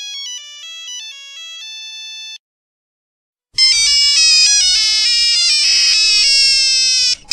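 Two Nokia phone ringtones in turn. A thin, beepy electronic melody stops about two and a half seconds in, then after a second's pause a louder, fuller-sounding ringtone melody plays.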